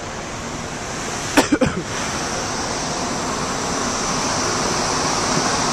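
Steady wind rushing over the microphone on a ship's open deck, growing slightly louder. About a second and a half in come three quick, sharp knocks close to the microphone.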